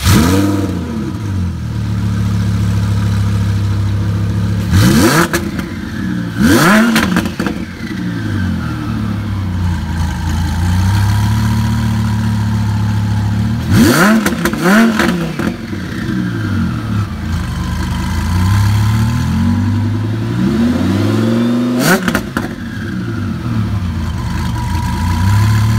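Twin-turbocharged Lamborghini Huracán V10 idling and being blipped repeatedly, about six short revs in pairs. Each rev is followed by a whine that falls away.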